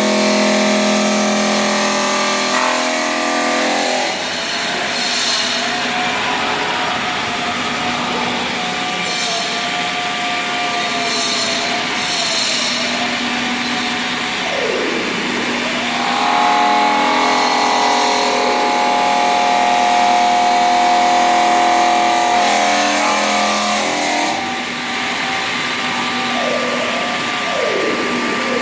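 CNC stone-cutting machine cutting marble: a steady motor whine over a rushing grinding noise. The pitch sags sharply and climbs back twice, about halfway through and near the end.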